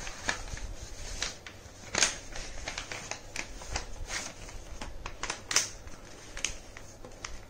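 A4 colour paper rustling and crackling as it is folded and creased by hand against a table, in many short crisp rustles. The loudest come about two seconds in and again about five and a half seconds in.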